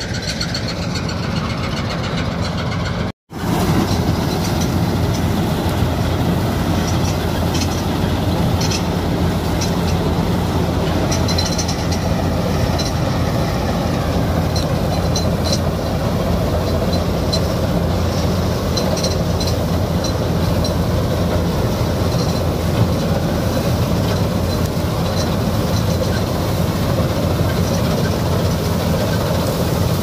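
Gill Preet self-propelled combine harvester running steadily while cutting mustard: an unbroken engine and threshing drone with a constant low hum. About three seconds in there is a sudden break, and after it the machine sounds louder.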